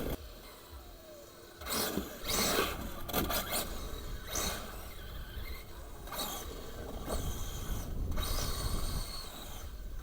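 Radio-controlled car driving, with irregular bursts of scraping, rushing noise as it accelerates and slides.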